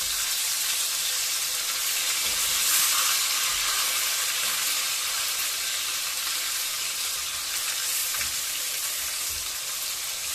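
Masala-marinated chicken pieces shallow-frying in hot oil in a pan, with a steady sizzle, while a wooden spatula stirs and turns the pieces.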